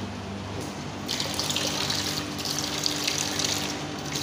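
Water running from a sink tap and splashing into a steel sink, starting about a second in, over a steady low hum.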